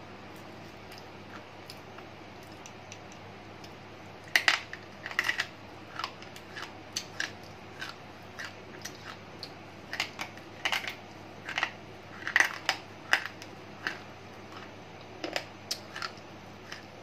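Slate pencil crunched between the teeth close to the microphone: sharp, irregular crunches and crackles starting about four seconds in and going on until near the end.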